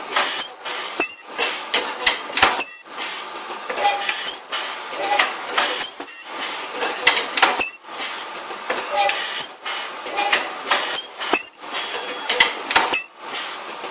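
Irregular clinks and knocks of parts and fixtures being handled at a PP ultrasonic welding machine, several sharp strikes a second at times, over a continuous workshop hiss.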